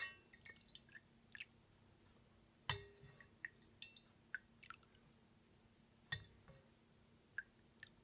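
A utensil clinking and scraping against a container while melted beeswax is stirred into oil. There are three sharper knocks about three seconds apart, with light ticks between them.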